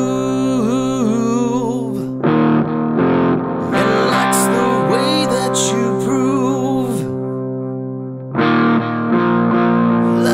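Background music: electric guitar with distortion and effects over sustained chords, with a wavering melody line.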